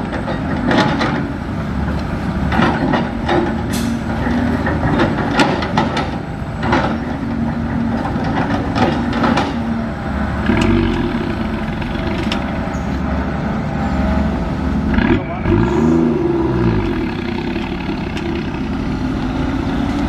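Diesel engines of a Cat 320 excavator and a dump truck running, with repeated knocks and thuds as the excavator's bucket drops soil into the truck bed. About three-quarters of the way through, an engine's pitch rises and falls once.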